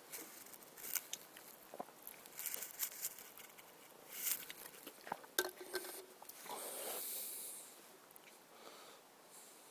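Phone handling noise close to a cat: scattered clicks and rustles right at the microphone, with a longer hiss about seven seconds in.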